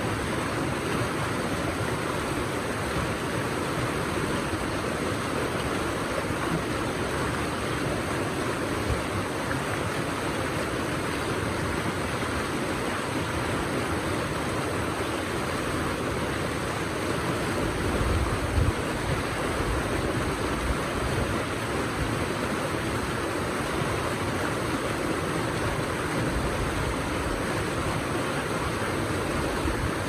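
River water rushing over boulders through a small rapid: a steady, even white-water noise. A brief low rumble comes a little past halfway.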